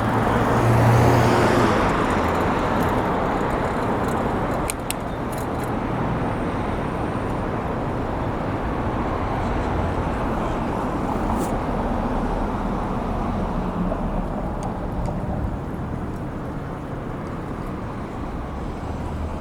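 Road traffic: cars passing on a busy street, with a vehicle's engine hum loudest about a second in, then a steady traffic noise that slowly fades a little.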